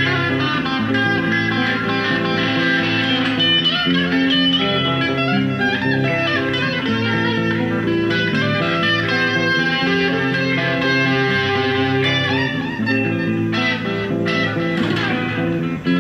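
Electric guitar playing a continuous run of held, overlapping notes.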